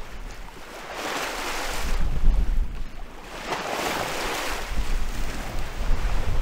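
Bow wave of a sailing boat rushing and splashing along the hull, swelling twice as the bow pushes through the swell, with a low rumble of wind on the microphone.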